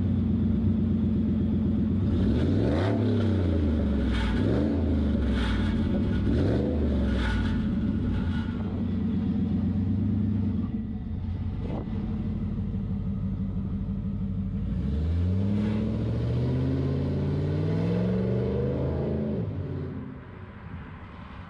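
Supercharged 4.6 L four-valve Ford Cobra V8 with a Kenne-Bell supercharger idling, then revved in about five quick throttle blips. After a steadier stretch, it climbs in pitch for several seconds as the truck accelerates away, and the sound falls off near the end.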